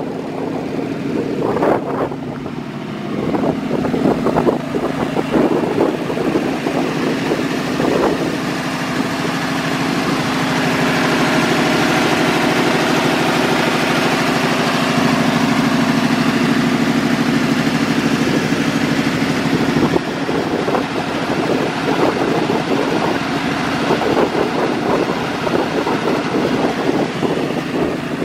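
3.5-litre Buick (Rover) V8 idling steadily, heard up close in the open engine bay. A louder rushing hiss rides over it through the middle stretch.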